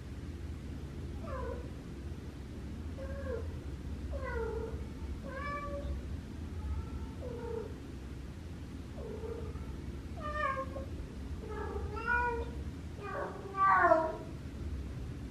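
Female cat in heat calling for a mate: a string of about a dozen short meows, each falling in pitch, growing louder near the end.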